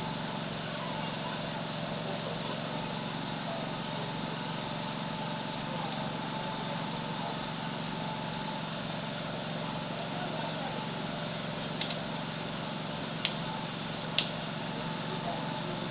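Steady background noise with a constant hum, and three short sharp clicks near the end.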